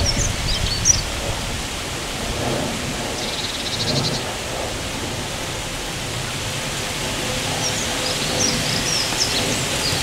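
Wind rustling the leaves of a tree overhead, with a low rumble of wind on the microphone. Small birds chirp briefly at the start and again near the end, with a short buzzy trill about three seconds in.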